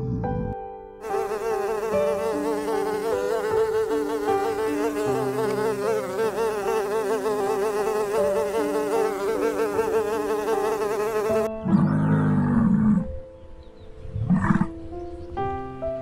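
Honeybees swarming at a hive entrance, a dense wavering buzz over soft steady background music. The buzzing cuts off near the end and a deeper animal call sounds twice.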